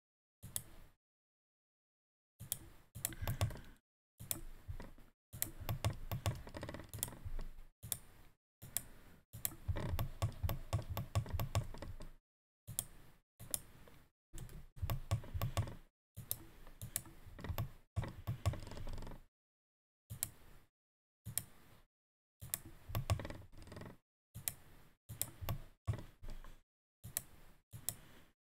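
Computer mouse and keyboard clicking in short runs of quick ticks, with spells of dead silence between the runs.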